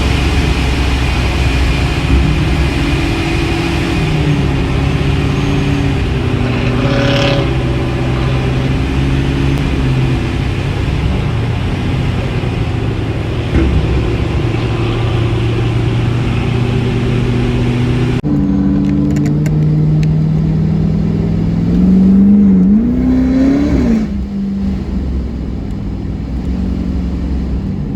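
Pontiac G8's modified V8 running loud at steady revs through a performance exhaust. About two-thirds of the way through the sound changes abruptly, and near the end the engine revs up briefly and falls back.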